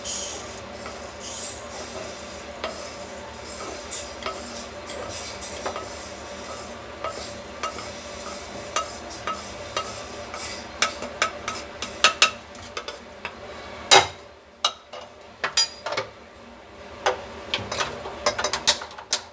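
Wooden spatula scraping freshly roasted sesame seeds out of a nonstick wok into a bowl: a steady scratchy rattle of seeds with many small clicks and taps. About 14 seconds in comes one sharp knock, then only occasional taps.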